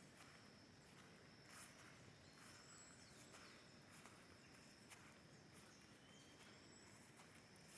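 Faint forest ambience: a steady high insect drone under a few short, high bird chirps, with occasional soft rustles.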